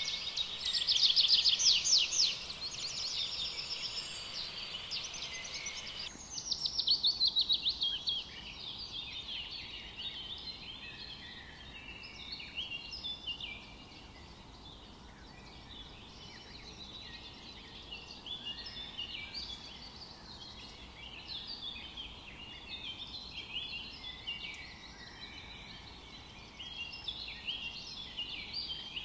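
Many birds chirping and calling, with loud rapid trills in the first couple of seconds and again about six seconds in, then a steady scatter of short chirps.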